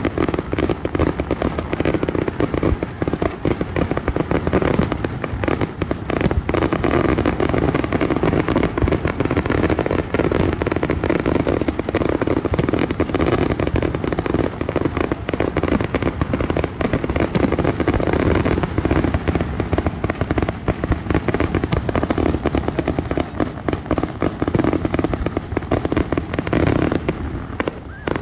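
Aerial fireworks display in full barrage: shells launching and bursting in a rapid, unbroken run of overlapping bangs.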